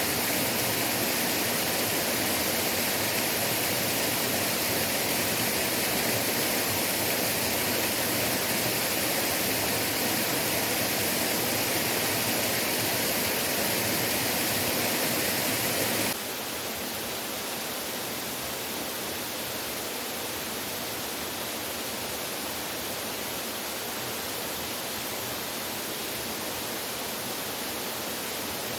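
Waterfall rushing in a steady, full roar of falling water, which drops suddenly to a somewhat softer, duller rush a little past halfway.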